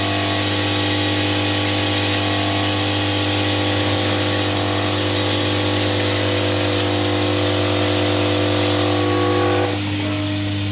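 Vertical packing machine running, a steady mechanical hum with several steady tones over it. Just before the end there is a sharp click and some of the tones stop.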